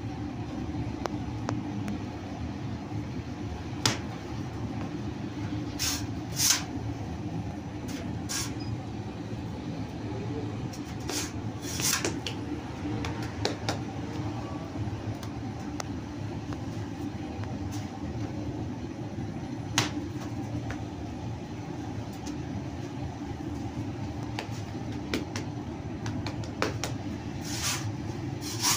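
Bakery machinery running with a steady low hum, broken by a few scattered sharp clacks and knocks.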